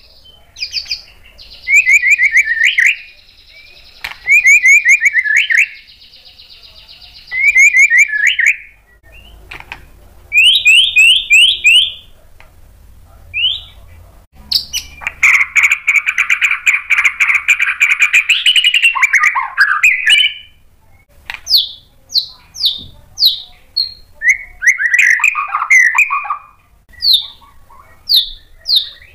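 White-rumped shama (murai batu) singing in bursts of varied phrases. It opens with quick runs of repeated notes, then gives a long buzzing rattle in the middle, and ends with a string of sharp, separate, falling notes.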